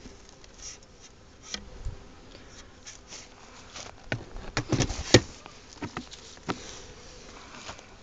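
Bees buzzing faintly and steadily around the hives, over knocks and scrapes of a pool stick poking at the wooden hive box. The knocks cluster about four to five seconds in, with one sharp loudest knock just after five seconds.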